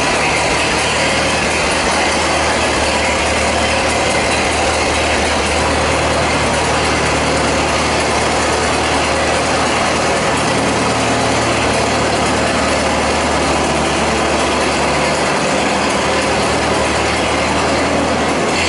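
Massey Harris tractor engine running steadily as the tractor drives out and away.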